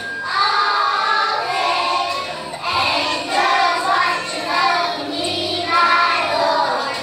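A group of young children singing a song together in a chorus.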